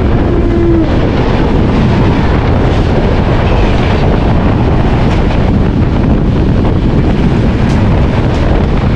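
Steady wind buffeting the microphone at the open door of a fast-moving train, over the rumble of its running gear, while a passenger train passes close by on the next track.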